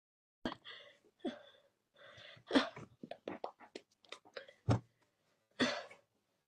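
A string of short, abrupt breathy vocal sounds and mouth noises, cough- or huff-like and some briefly voiced, from people signing. Quick clicks fall between them, thickest around the middle.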